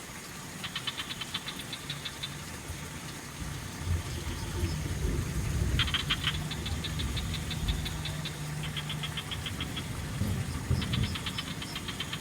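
Frogs calling back and forth: bouts of rapid, even clicking pulses about a second long, several overlapping in the second half. A low rumble runs underneath through the middle.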